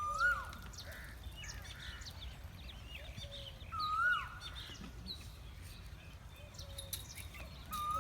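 Birds calling: a clear whistled call, held level and then dropping in pitch, comes three times about four seconds apart, over scattered short chirps of smaller birds.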